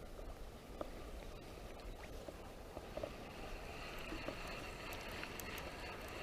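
River water running steadily, with a few faint clicks.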